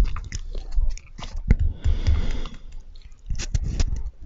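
Close-miked mouth sounds of marshmallows being chewed: soft wet smacks and many short lip and tongue clicks.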